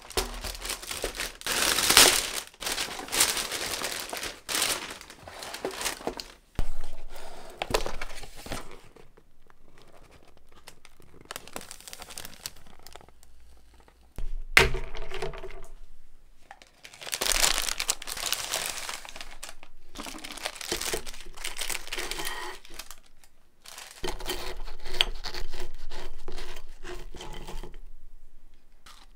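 Thin plastic takeout bags crinkling and rustling in bursts as food is unpacked, with a paperboard takeout box being opened and a few sharp knocks.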